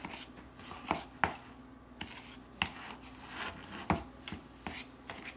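A spoon stirring a stiff flour-and-salt dough in a bowl: soft scraping and squishing with irregular sharp knocks of the spoon against the bowl, the loudest about four seconds in.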